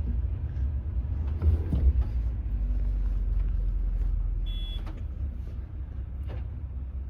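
Pickup truck engine running under load, heard from inside the cab as a steady low rumble while the truck works its way out of slick mud. A short high tone sounds about halfway through.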